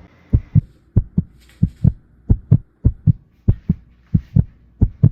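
Heartbeat sound effect: steady paired low thuds, lub-dub, about one and a half beats a second.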